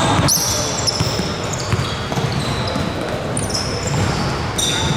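Basketball game play on an indoor court: a ball bouncing with dull thuds and sneakers giving short high squeaks on the floor, with players' voices in the background.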